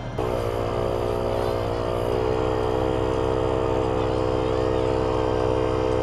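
A 12 V portable air compressor switches on just after the start and runs with a steady motor hum while pumping up a nearly flat spare tire. Its pitch sags a little over the first couple of seconds as it takes the load, then holds.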